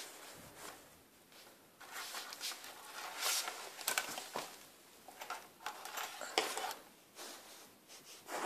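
Light rustling and scattered small clicks of handling, busiest from about two to seven seconds in.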